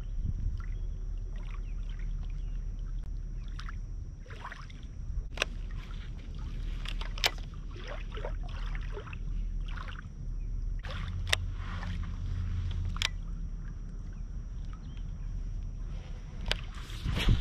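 Wind rumbling on the microphone at the water's edge, with water lapping and a dozen or so scattered sharp clicks.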